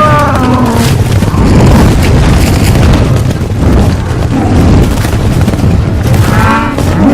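Film soundtrack of a tiger and panther fighting: heavy rumbling and booming impacts under dramatic score, with a snarling big-cat roar at the start and another near the end.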